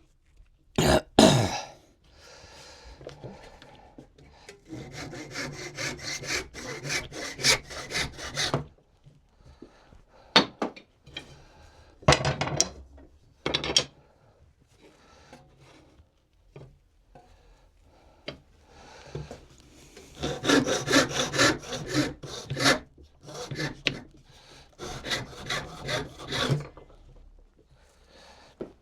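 Hand tool cutting wood in three runs of quick back-and-forth strokes, with a few sharp knocks of wood in between.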